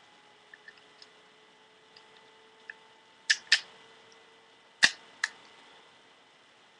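Sharp clicks and small knocks of paintball marker parts being handled and fitted together. Two clicks come a little before halfway and two more about a second and a half later, with faint ticks between, over a faint steady hum.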